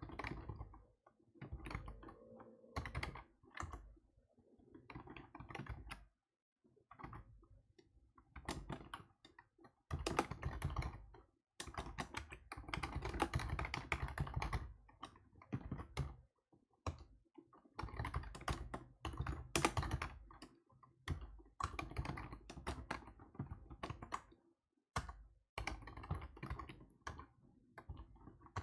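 Typing on a computer keyboard in irregular bursts of rapid key clicks, with short pauses between runs.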